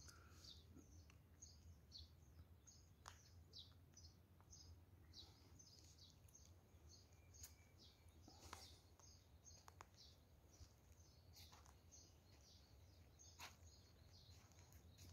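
Faint, near-silent background with a small bird chirping over and over, short high chirps about two or three a second, over a low steady hum and a few soft clicks.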